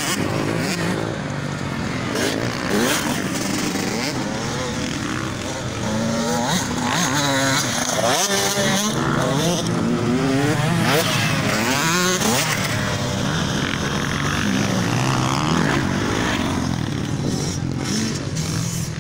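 Motocross dirt bike engines revving hard and easing off as the bikes ride the track, the pitch repeatedly rising and dropping with throttle and gear changes.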